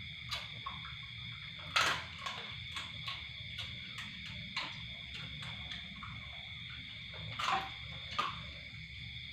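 Steady, high insect chirring at two fixed pitches, with a few sharp clicks and knocks scattered through it. The loudest knocks come about two seconds in and again a little before the end.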